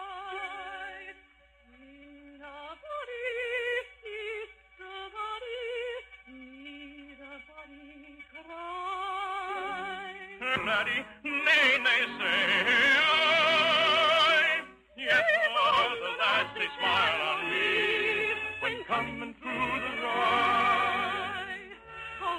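Orchestral music with a vibrato melody line. It is quiet and sparse at first, then swells suddenly to a louder, fuller sound about ten seconds in.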